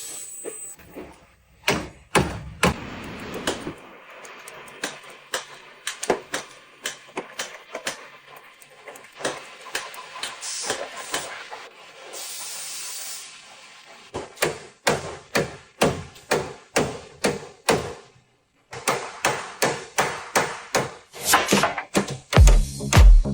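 A series of sharp knocks and taps, irregular at first and later coming about twice a second, with a short hiss about halfway through.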